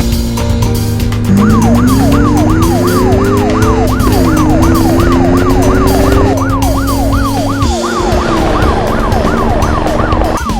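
Siren sound effect, a fast rising-and-falling wail of about two to three sweeps a second. It breaks off for about a second at the start, then keeps going over steady background music, with a lower whine gliding upward in the middle.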